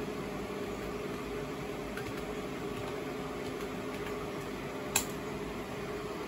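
Computer keyboard keys clicking faintly now and then over a steady background hum, with one sharper key click about five seconds in as Enter is pressed to run the command.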